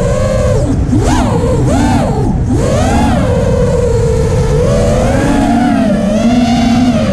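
Radio-controlled aircraft's motor and propellers, heard from the onboard GoPro, whining with the pitch swooping sharply up and down about one to three seconds in, then holding steadier with gentle rises and falls. A low rushing noise of air runs underneath.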